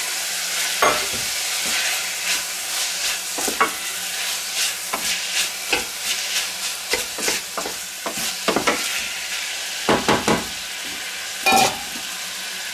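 Diced bacon and onions frying in clarified butter in a stainless steel pot: a steady sizzle. A wooden spatula stirring them adds many short scrapes and knocks, a few louder ones near the end.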